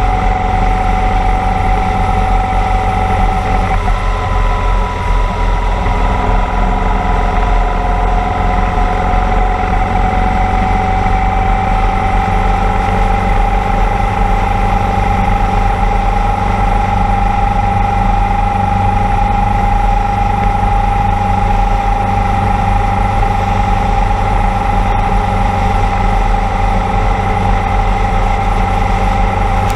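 Motorcycle engine running steadily at road speed, with a steady rush of wind over the microphone. The engine note dips about four seconds in, then rises slowly over the next several seconds and holds.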